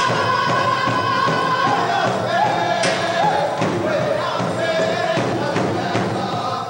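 Powwow drum group singing: high voices hold long notes that step down in pitch, over drumbeats on a large drum.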